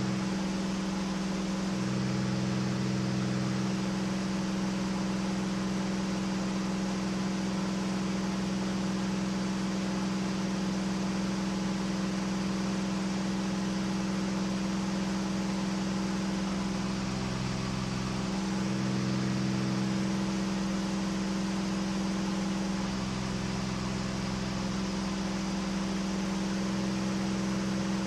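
Cockpit noise of a KR2 light airplane in flight: the engine and propeller droning steadily over a constant rush of air noise. The engine's pitch rises slightly near the end.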